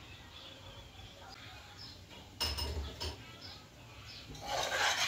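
A metal spoon stirring and scraping in a stainless steel cooking pot of seasoning, loud and rattling from about four seconds in. A single knock against the pot comes about halfway through. Faint bird chirps can be heard before it.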